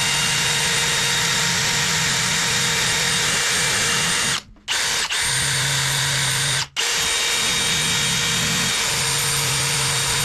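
Electric drill spinning a wire wheel brush against a steel lawnmower blade, scrubbing caked grime off it. It runs steadily, stopping briefly twice, about four and a half and nearly seven seconds in.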